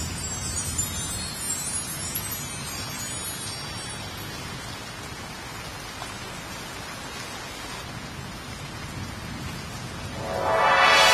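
Heavy rain pouring steadily, with a louder rushing swell building near the end.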